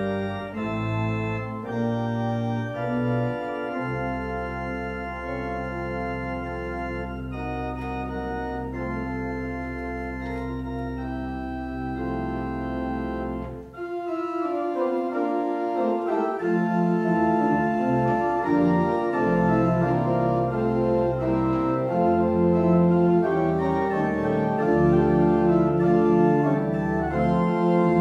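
Church organ playing a prelude: sustained chords over a deep held bass note, then a brief pause about halfway through, after which a louder, busier passage with moving notes begins.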